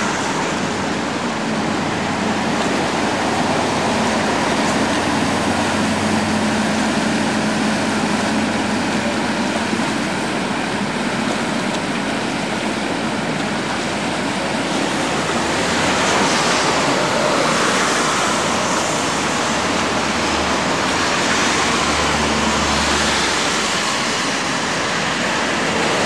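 Steady rushing outdoor noise of rain and city traffic, with a low hum through the first half and a louder, brighter stretch past the middle.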